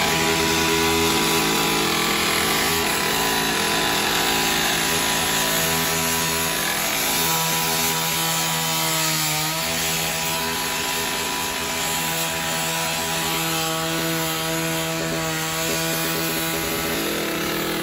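Gas-powered rotary rescue saw running at high speed as its blade cuts into the metal body of a burned SUV. The engine note stays steady, with a brief dip in pitch about nine seconds in as the blade takes the load.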